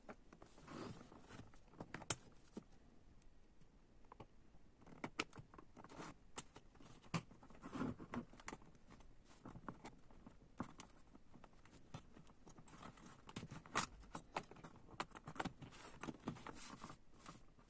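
Irregular small clicks, taps and scrapes of an OBD diagnostic cable's plastic connector housing and its battery and LED parts being handled and fitted back together.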